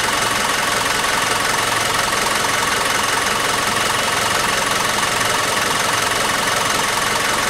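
Land Rover 200Tdi 2.5-litre four-cylinder turbodiesel idling steadily with the bonnet open, soon after a cambelt change and while low on coolant.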